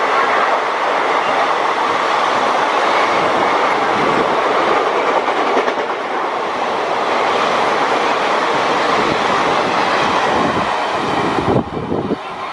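Passenger train passing close by on the line: a steady, loud rush of wheels on rails with a clickety-clack rhythm, which cuts off suddenly about a second before the end.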